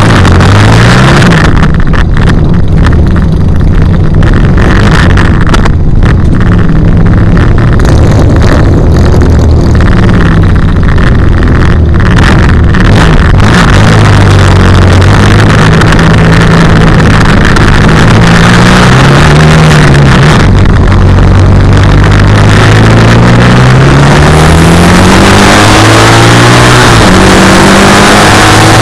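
Racing sidecar outfit's engine close to the microphone and very loud, running at low revs as the outfit rolls slowly. About 24 seconds in it revs up, rising in pitch, as it accelerates onto the track, with wind noise rising alongside.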